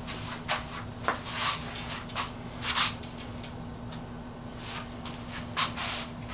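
A few light clicks and short rubbing or scraping sounds of tools and parts being handled, over a steady low hum.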